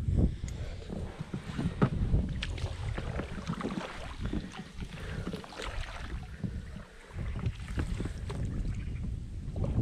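Small boat on the water: irregular splashing and knocking of oars and hull, with wind buffeting the microphone.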